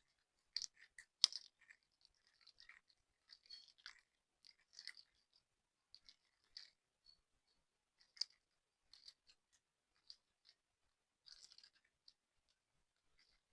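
Slime being squeezed and worked by hand: faint, irregular sticky clicks and small crackling pops, the sharpest about a second in and again about eight seconds in.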